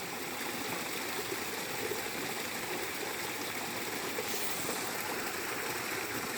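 Small waterfall splashing and rushing steadily over rocks.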